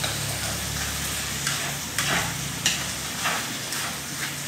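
Snails and onion stir-frying in a wok, sizzling steadily, with repeated sharp clicks of chopsticks stirring against the pan.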